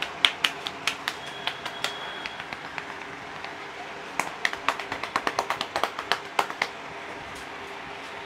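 Sharp hand taps and slaps of a head massage: a loose run over the first two seconds, then a fast run of about six taps a second from about four seconds in, over steady outdoor street noise.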